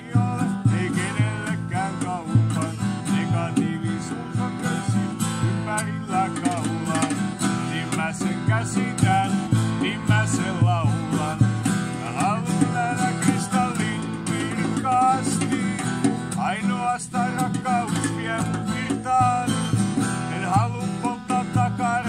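Two acoustic guitars playing together: one strummed, the other laid flat across the lap and played slide-style, its notes gliding up and down in pitch over the strumming.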